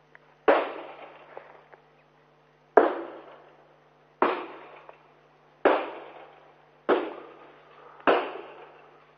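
Six gunshots picked up by a police body camera's microphone, fired at irregular intervals of one to two seconds during an exchange of fire. Each crack trails off in an echo, and the second is the loudest.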